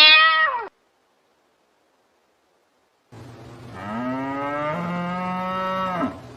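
A cow mooing: one long moo of about two seconds, rising slightly at the start and then held, beginning a little after the middle. Before it, the end of a loud, higher-pitched animal call cuts off abruptly, followed by a couple of seconds of silence.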